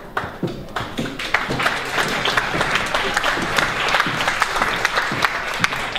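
Audience applauding in a theatre: a dense crowd of hand claps that swells about a second in and keeps on.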